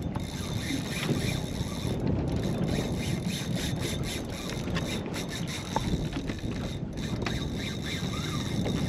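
Steady wind on the microphone and sea water washing around a small fishing boat's hull, with a few faint ticks.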